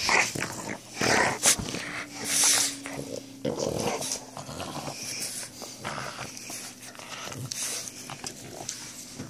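Two dogs playing with a rope tug toy, making irregular short bursts of dog noise.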